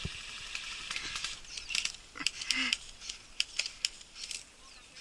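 Airsoft guns firing single shots: a string of sharp, irregular clicks, about eight over three seconds, after a second of hiss.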